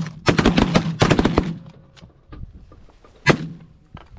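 Volley of shotgun blasts from several hunters firing in quick succession for about a second and a half, then one last shot about three seconds in.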